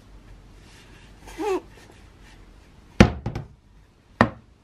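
Steel head of a restored 7 lb sledgehammer knocking down onto a cutting mat on a workbench. There is a sharp thunk about three seconds in with two quick smaller knocks right after it, and another single thunk near the end. A brief squeaky scrape comes about a second and a half in.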